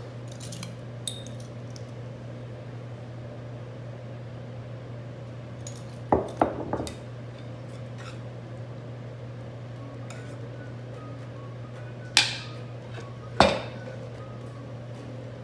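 Kitchen dishes and utensils knocking: a metal mixing bowl and tongs clink a few times about six seconds in, then two sharper knocks near the end, over a steady low hum.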